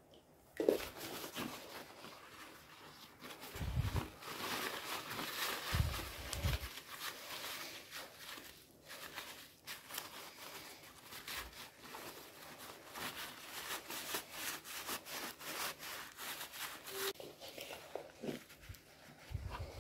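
A plastic bag crinkling and rustling as it is wrapped around a wet potato and rubbed between the hands, with a few low thumps of handling against the floor.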